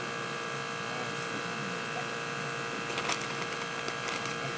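A steady electrical buzzing hum made of several fixed tones, with a few sharp clicks about three seconds in.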